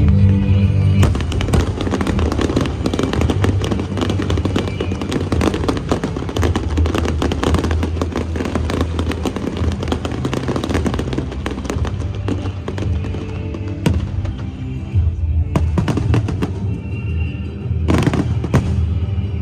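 Fireworks display: dense crackling and popping from about a second in, thinning out after about fourteen seconds, with another burst near the end, all over loud music.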